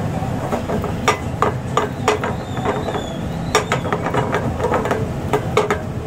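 Silicone spatula knocking and scraping against a frying pan while vegetables are stirred, in irregular sharp clacks, over a steady low background rumble.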